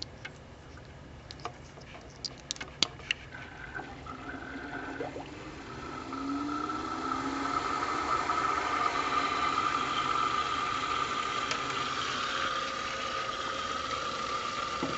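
A few small clicks of the pump's power leads being handled, then about six seconds in an Alphacool D5 water-cooling pump starts and runs with a steady whine over the hiss of water circulating through a test loop. It is running a leak test.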